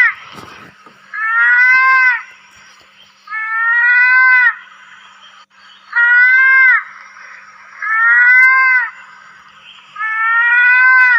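Mouse-deer (kancil) calling: a high, meow-like bleat about a second long, rising slightly in pitch, repeated about every two seconds, five times over.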